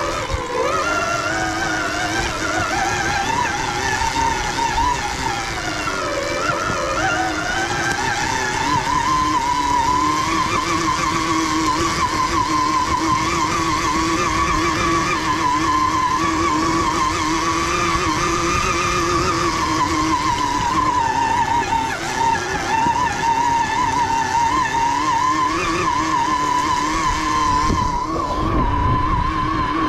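Mountain bike riding a dirt singletrack: steady rumble of tyres over the trail with a whine that rises and falls with speed, dipping about six seconds in and climbing again a few seconds later.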